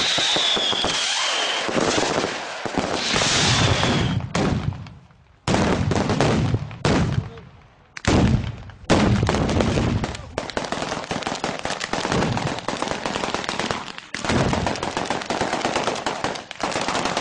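Fireworks and firecrackers going off in rapid, dense strings of bangs and crackling, like machine-gun fire, with a high falling whistle in the first second. The barrage breaks off abruptly a few times and starts again.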